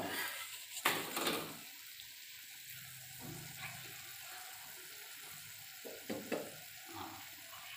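Thick radish-tomato thokku simmering in a kadai: a steady faint sizzle with a few soft bubbling pops, the loudest about a second in.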